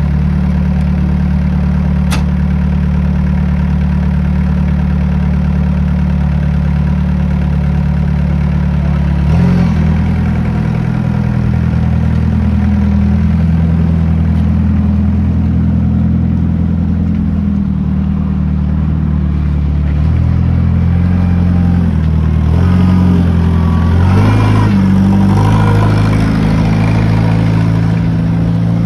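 LM Trac 385 tool carrier's engine running at a steady idle, with a single sharp click about two seconds in. About nine seconds in the engine note changes and then rises and falls in pitch as the machine is driven and manoeuvred.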